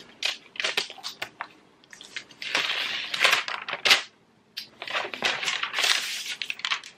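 Protective wrap being peeled off a new MacBook Air: a dry tearing rustle in two long pulls with a brief pause between them, after a few light handling clicks.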